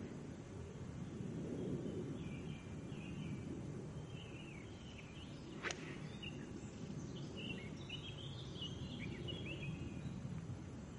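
Woodland birds chirping and trilling over a steady low rumble; a little over halfway through, a single sharp click of a golf club striking a ball.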